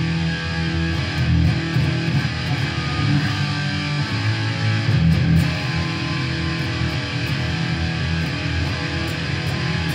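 Jackson SL4X Soloist electric guitar played continuously, a run of chords and picked notes with no pauses.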